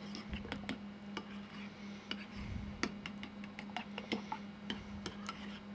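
Metal spoon stirring a thick mustard-and-ketchup sauce in a ceramic bowl, clinking and scraping against the bowl in irregular taps.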